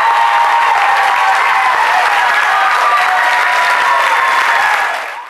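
Audience applauding, a steady dense clapping that fades out just before the end.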